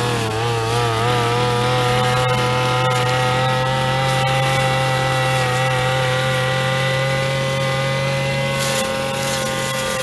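Backpack brush cutter's small two-stroke engine running at high, steady revs, its pitch wavering briefly near the start. Near the end come a few short hissing bursts as the spinning cutting head meets the weeds.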